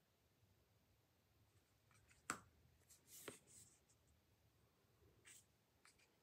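Faint handling of tarot cards: a sharp tap a little over two seconds in, then a card sliding with a click a second later, and a soft brush of a card near the end.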